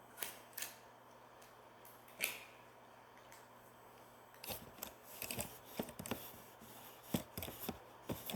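Handling noise of small objects close to the microphone: a few single sharp clicks in the first couple of seconds, then a busy run of clicks and rustling from about halfway through.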